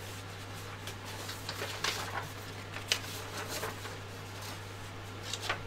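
A steady low hum with a few short, soft rustling and handling noises as things are moved about on the workbench, the clearest a little after the first second, near the third second and just before the end.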